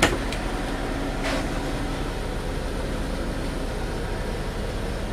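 Steady drone of the sleeper truck's generator running, with a sharp latch click as a wooden cabinet-style door is opened right at the start and a short swish of the door moving about a second later.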